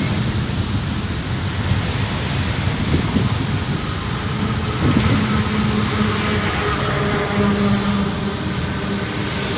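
Steady rumbling roar of a distant jet airliner climbing away after takeoff. A faint hum of steady tones joins about halfway through.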